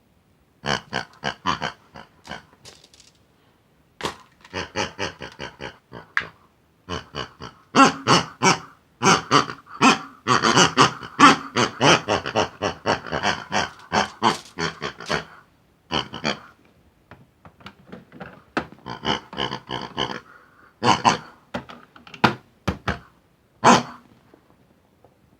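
Pig-like grunting and oinking chatter in quick runs of short calls, broken by several brief pauses.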